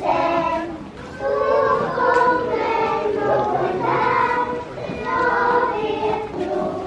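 Children's choir singing a Swedish Christmas song in a Lucia procession.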